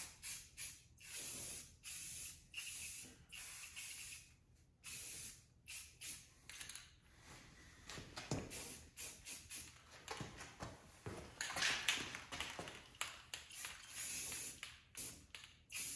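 Aerosol spray-paint can spraying in a string of short bursts with brief pauses between them.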